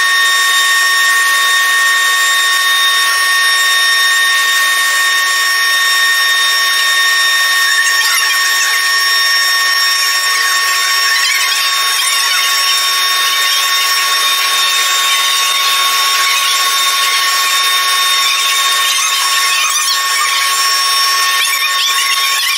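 A power tool working metal, running with a steady high-pitched whine made of several fixed tones over a hiss.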